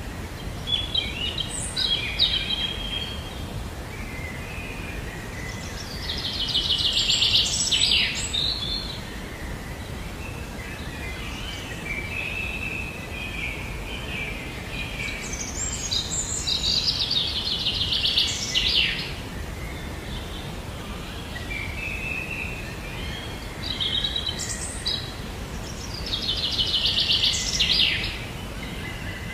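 Songbirds singing and chirping over a steady low background rumble. A loud, fast trilled phrase comes three times, about ten seconds apart, with shorter chirps and whistles between.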